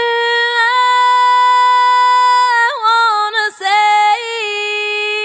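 High-pitched unaccompanied singing voice with no beat. It holds one long steady note for about two and a half seconds, then moves through shorter notes with quick slides between them.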